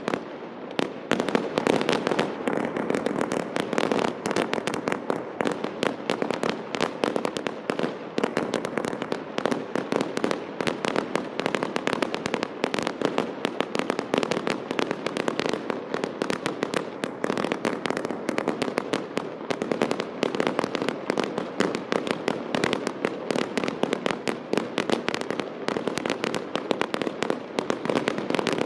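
Castillo fireworks display going off: a continuous rapid stream of bangs and crackling from bursting aerial shells and firecrackers, with no break in the firing.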